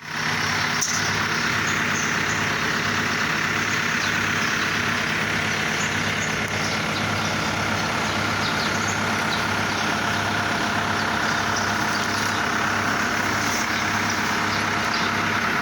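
Excavator's diesel engine running steadily, with a slow, regular low throb.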